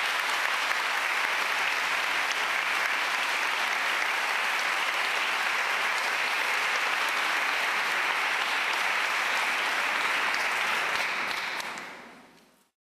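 Audience applauding steadily, a dense even clapping that fades out near the end.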